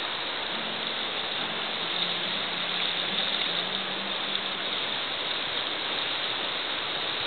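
Steady rushing of flowing river water, with a faint low hum alongside from about half a second in.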